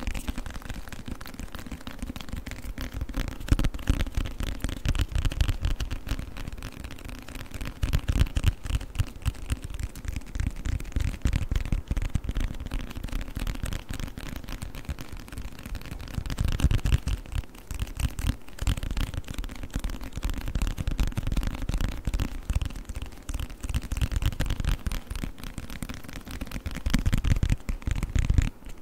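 Fast, continuous tapping on a book: many quick taps a second, with a short lull around the middle.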